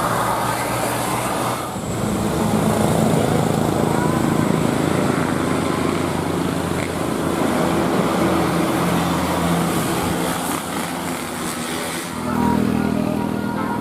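Roadside traffic noise: engines and tyre rumble of passing vehicles. The sound shifts abruptly about two seconds in and again near the end.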